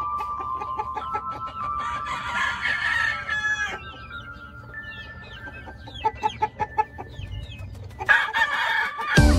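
A rooster crowing, a crow of about two seconds beginning about two seconds in, then short clucks and a second crow near the end. Faint music with held notes plays underneath.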